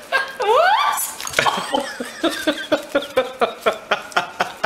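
Puppy eating from a saucer: quick wet lapping smacks, about five a second. There is a short rising voice-like glide about half a second in.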